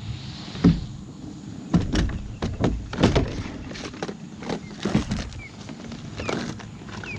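A string of irregular knocks and clunks, about ten of them, from gear being handled in a kayak.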